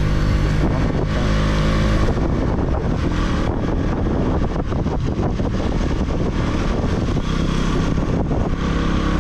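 Motorcycle engine running on the move, with a steady engine note for about the first two seconds, then mixed with rougher wind and road noise.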